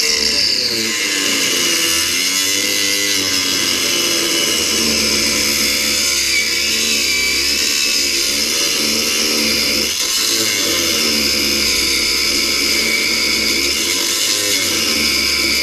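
Electric power tool cutting through the steel of a Land Rover Discovery 2's rusty rear chassis rail, running continuously under load with its motor pitch wavering.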